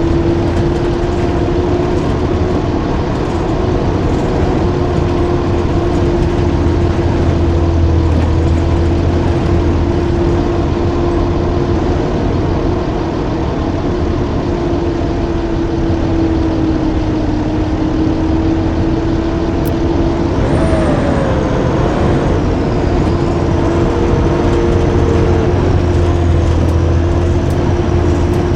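Blue Bird school bus running steadily under way: a continuous low engine drone with a steady whine above it. About two-thirds of the way through, a thin high whistle joins in and slowly slides down in pitch.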